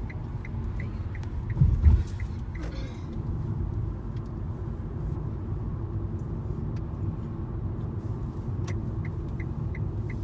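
Steady low rumble of a car's engine and tyres heard from inside the cabin while driving. There is a loud thump about two seconds in, and a light, even ticking of about three to four ticks a second at the start and again near the end.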